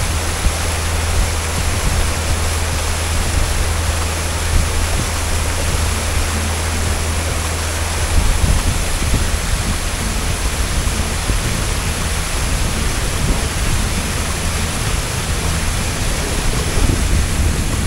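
Small ferry boat underway: a steady rush of wake water and wind on the microphone over the low, even hum of the boat's engine, which is strongest in the first half.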